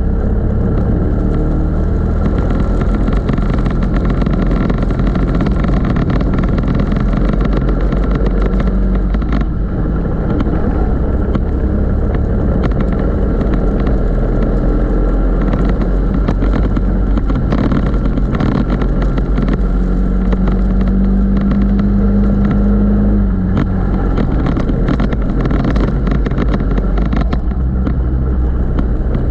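Racing go-kart engine running hard through a lap, heard close up from a camera mounted on the kart. The engine note holds louder and steadier for a few seconds about two-thirds of the way in.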